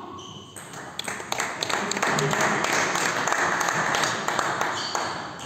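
A small crowd of spectators applauds a won point in a table tennis match. Scattered clapping swells about half a second in and dies away near the end.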